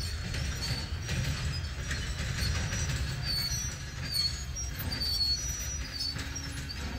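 Train rolling by with a steady low rumble, with short high-pitched chirps scattered over it.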